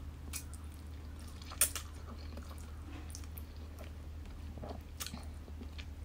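Eating sounds from a person slurping and chewing a mouthful of instant ramen noodles: scattered wet smacks and clicks, the sharpest about a second and a half in, over a steady low hum.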